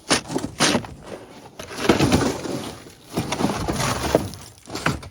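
Shovel chipping and scraping at packed ice: several crunching, scraping strokes with a couple of sharp knocks near the start.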